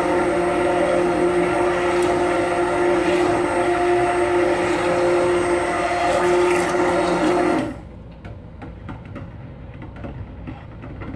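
Handheld immersion blender running steadily with a motor hum, mixing lye and oils into soap batter that is thickening but not yet at trace. It cuts off suddenly about three-quarters of the way through, followed by faint knocks and clicks as the blender is moved in the pot.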